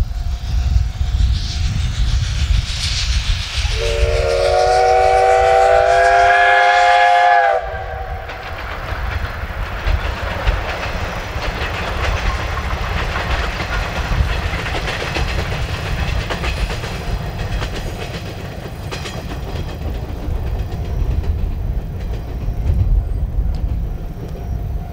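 C12-class steam locomotive blowing one long whistle of about four seconds a few seconds in, then the train running past with a steady rumble and wheels clattering over the rail joints.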